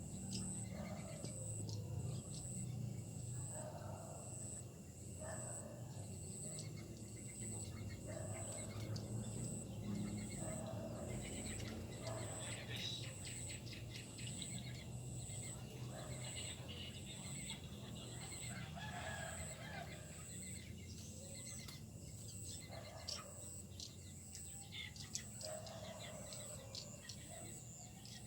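A large flock of sparrows and swiftlets chirping and twittering, with many short high chirps and lower calls repeating every second or two.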